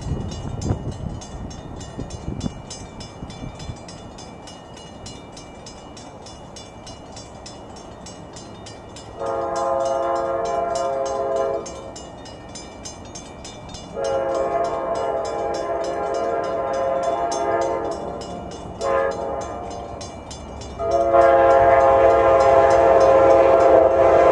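Amtrak P42DC locomotive's Nathan K5LA five-chime air horn sounding a chord in two long blasts, a short one and a final long one that is still held at the end: the standard grade-crossing signal of an approaching train.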